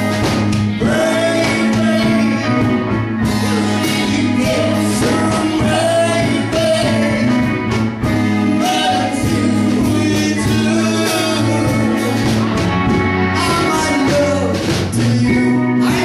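Live band playing a song: a lead vocal over electric guitar, bass and a drum kit.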